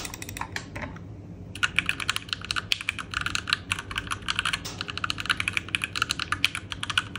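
Fast typing on a Keychron Q1 V2 aluminium-bodied mechanical keyboard with its stock Gateron G Pro Red switches: a quick run of key clacks, a short pause about a second in, then steady, dense typing.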